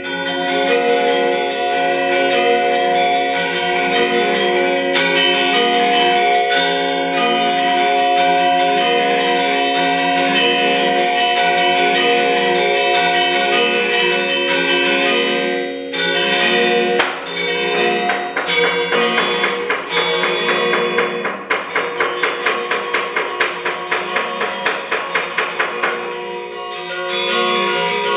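Balinese gender wayang ensemble of bronze metallophones playing, with many ringing, overlapping struck notes. About two-thirds of the way through, the playing changes to a fast, even run of repeated strikes, about four a second, before the fuller texture returns near the end.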